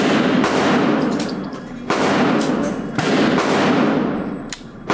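Glock 17 9 mm pistol firing single shots, one at the start, two more about two and three seconds in, and another at the very end, each crack followed by about a second of echo dying away in the indoor range.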